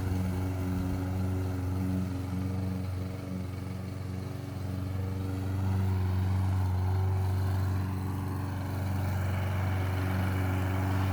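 Small petrol engine of lawn-care equipment running steadily at working speed, a little louder from about halfway through.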